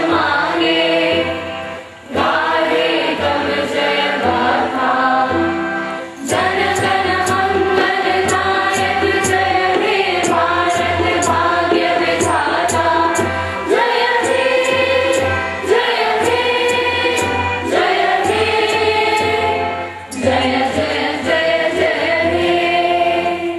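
A choir of voices singing in chorus, with held, swelling sung notes and musical accompaniment.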